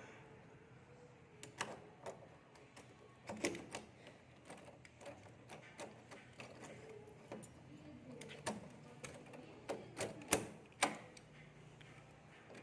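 Irregular sharp knocks and taps, a few seconds apart at first and then closer together, with several louder ones near the end.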